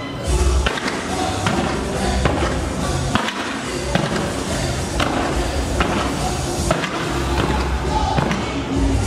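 Fireworks going off: sharp bangs at an uneven pace, about one a second, with music playing underneath.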